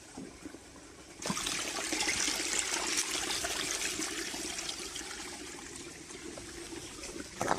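Water running and splashing in a small mountain stream, suddenly louder about a second in, then slowly easing. A brief knock near the end.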